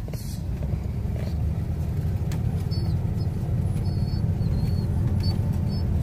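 Steady low rumble of a vehicle's engine and road noise heard from inside the cab while driving slowly.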